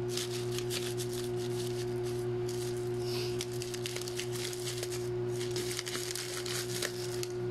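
Scissors snipping through plastic packaging, with repeated short clicks of the blades and crinkling of the wrap, over a steady low hum.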